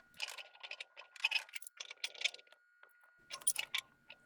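Short metallic clicks and clinks in four irregular clusters, from a steel pipe being worked into threaded pipe fittings.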